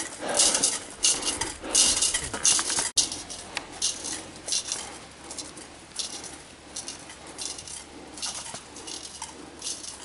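A cooking pot hanging on a hiker's backpack clattering with each step, loud for about the first three seconds. After a sudden break, quieter scattered clinks and footsteps.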